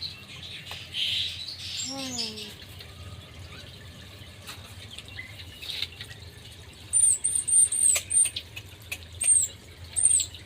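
A small bird's high, thin calls: a quick run of about five short arched notes in the last few seconds, then two more spaced out.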